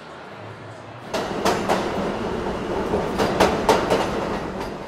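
Low hum, then about a second in a subway train comes through: a loud rumble with several sharp clacks of wheels over rail joints, easing off near the end.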